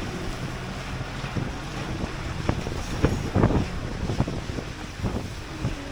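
Moving bus: a steady low rumble and rushing wind noise, with a scattering of short knocks and rattles.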